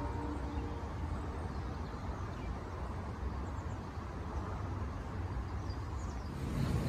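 Outdoor village ambience: a steady low rumble with a few faint, high bird chirps, as the tail of the background music fades out in the first second.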